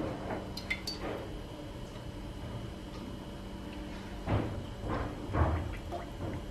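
Cooking oil poured in a thin steady stream from a plastic bottle into a metal kadhai, a faint trickle. A few soft, dull thuds come in the last two seconds.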